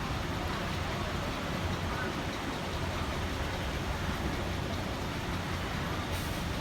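Steady rumble of a Hong Kong double-decker tram running along its street track, heard from on board, with road traffic around it.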